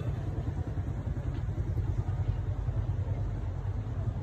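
Road traffic noise from a jam of stopped cars and motorbikes: a steady low rumble of idling engines.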